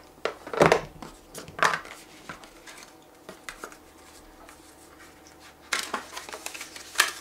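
Handling noise from unpacking: the Mac mini's white power cord and its plastic plug clicking and knocking as they are set down on the table, then the cardboard documentation packet being handled and its flap opened, with scraping and a sharp tap near the end.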